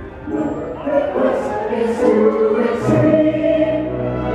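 Fireworks show soundtrack: a choir singing long held notes over music.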